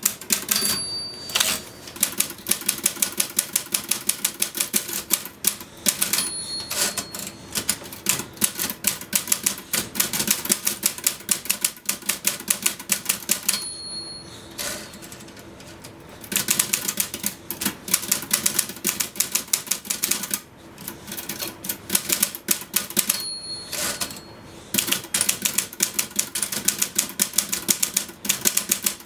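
A typewriter typed on rapidly in dense runs of keystrokes. Five times, the end-of-line bell dings and the typing breaks off briefly before carrying on.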